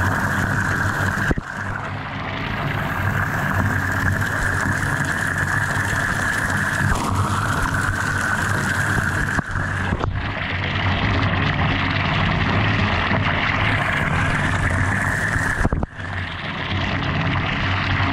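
Water pouring into a bathtub with a steady rush and a steady high tone running through it; the sound breaks off abruptly three times.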